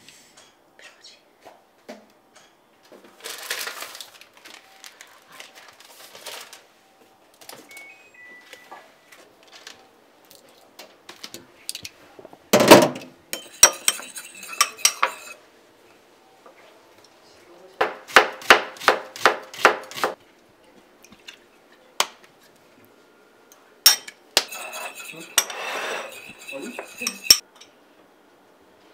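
A metal fork clinks and beats against a small ceramic bowl as a mayonnaise and soy sauce dressing is mixed, with a quick run of strokes in the middle, along with bottles and utensils knocking on the counter. The loudest sound is a single sharp knock about halfway through, and a scraping stretch with more clinks comes near the end.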